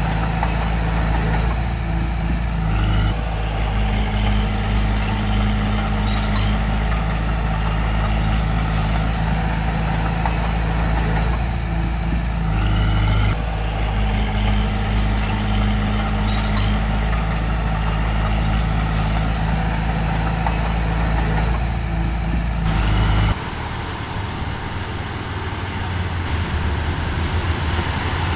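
Bulldozer's diesel engine running steadily with its pitch shifting now and then, a few sharp clicks over it. About 23 seconds in the sound changes abruptly to a different, lower engine drone.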